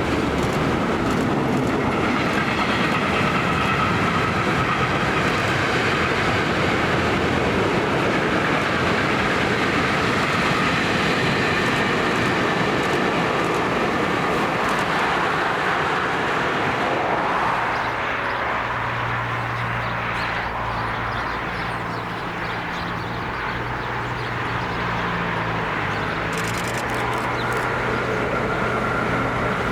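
A train passing on the line, a long steady rush of running noise; a little past halfway it gives way to a low steady hum.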